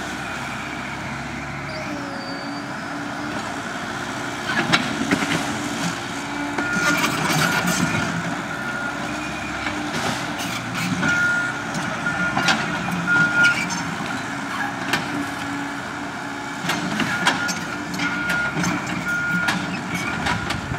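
Cat 312CL hydraulic excavator's diesel engine running steadily under load as it works a dirt pile, with repeated knocks and clatters from the bucket and short high-pitched tones coming and going.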